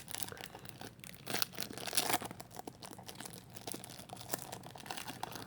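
A trading-card pack's plastic wrapper being torn open and crinkled by hand, irregular crackles and rustles.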